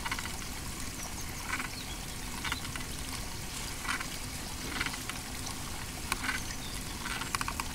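Water dripping, a drop roughly every second at slightly uneven intervals, over a steady low background noise.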